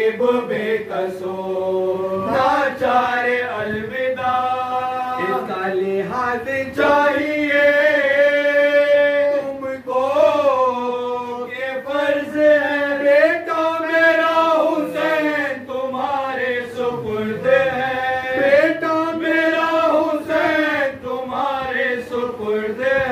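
Several men chanting a mourning elegy (noha) together into a microphone, unaccompanied: a slow, melodic line with long held notes and brief pauses for breath.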